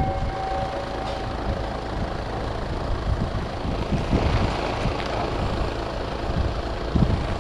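Heavy machine engine running steadily, with a couple of low thuds about four and seven seconds in.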